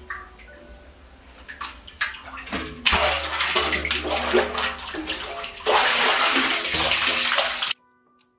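A bucket on a rope splashing into the water at the bottom of a well, churning and filling, in two long spells of loud splashing. The splashing stops abruptly near the end. Soft background music with plucked notes runs underneath.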